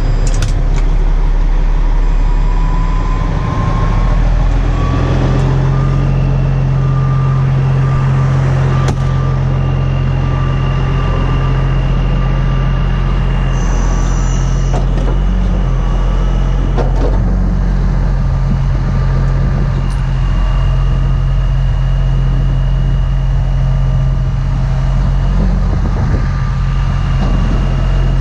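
Diesel engine of a Century 5130 heavy wrecker running steadily, its pitch stepping up a few seconds in, with a thin high whine over it.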